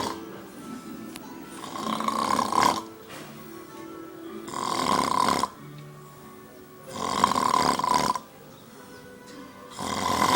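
A man snoring loudly, one long snore about every two and a half to three seconds, four in all.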